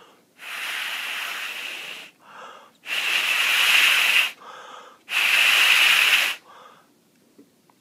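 Three long puffs of breath blown through a plastic drinking straw onto a small magnet motor's rotor to spin it up, each about a second and a half, with short, quieter in-breaths between them.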